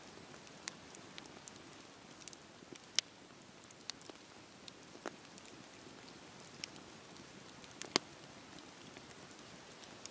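Campfire crackling: a steady low hiss of burning wood with scattered sharp pops and snaps, the loudest about three seconds in and again near eight seconds in.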